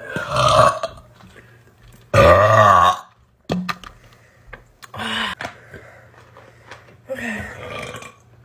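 A woman burping several times in a row, the loudest and longest a drawn-out belch of almost a second about two seconds in, with shorter burps around it.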